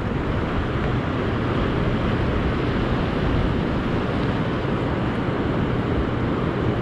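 Steady rushing of sea surf breaking on the shore, mixed with wind buffeting the microphone.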